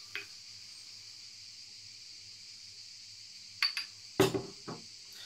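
Hazelnut liqueur being poured from a glass bottle into a small shot glass. It is mostly quiet, then a few short glass clinks and a knock come about four seconds in.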